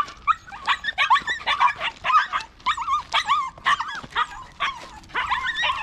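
Dog whimpering and yipping: a quick run of short, high, bending calls.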